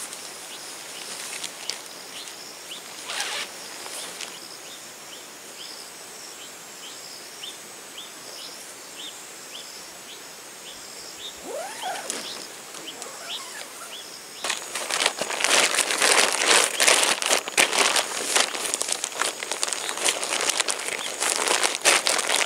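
Nylon tent fabric rustling and crinkling loudly as it is folded and rolled up by hand, starting about two-thirds of the way in. Before that, a short high chirp repeats about every half second over quiet outdoor ambience.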